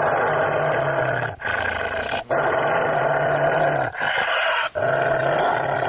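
Deep, raspy monster growl sound effect in about five long stretches with short breaks, for a cartoon character turning into a ghost.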